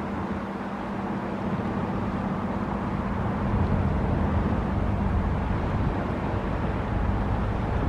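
Steady low engine drone from the ro-ro passenger ferry AOI heard across the water, with wind rumbling on the microphone. The rumble swells about halfway through.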